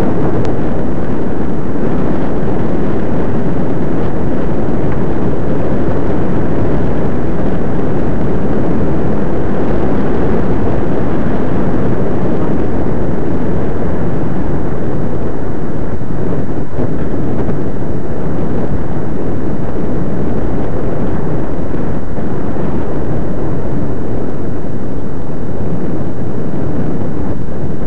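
Loud, steady wind rumble buffeting the microphone of a camera riding on a moving bicycle.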